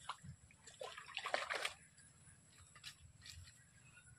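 Water splashing and sloshing as a hooked fish thrashes at the surface and is jerked out of the pond, in a quick cluster of splashes loudest about a second and a half in, then a few faint ticks.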